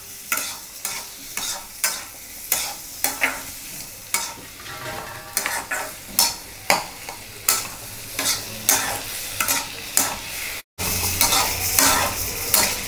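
A spatula scraping and stirring diced potatoes and onions in an iron kadai, about two strokes a second, over a light sizzle of frying in oil. The sound cuts out for a split second near the end.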